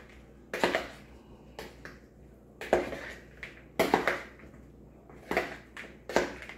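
Kitchen utensils and dishes knocking and clattering: about ten short, irregularly spaced knocks and clinks, as sauced chicken wings are handled between bowl and tray.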